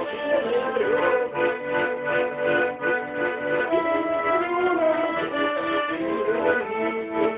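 Garmon (Russian button accordion) playing a tune: a sustained melody over rhythmically pulsing chords.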